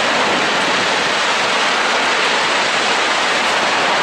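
Steady, loud rushing hiss of a large fuel-tank fire burning at a depot, even and unbroken throughout.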